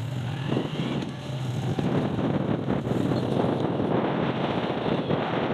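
Wind rushing over the microphone of a fast-moving vehicle, a steady buffeting noise with the low drone of the vehicle underneath.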